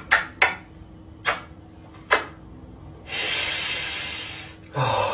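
Kisses on a cat's head: a quick run of sharp kissing smacks, then single smacks about a second and two seconds in. About three seconds in comes a long breathy hiss that fades out, and near the end another breathy sound with a low falling tone.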